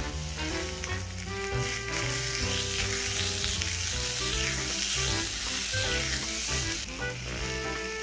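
Beef steak sizzling on the hot plate of an electric waffle maker. The sizzle drops off about seven seconds in as the lid comes down.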